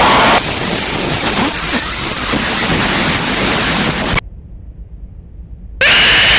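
Noise-music collage of loud hiss-like noise with abrupt cuts. It drops in level a little in, cuts suddenly to a low rumble for about a second and a half, then returns at full loudness with a high steady tone over it.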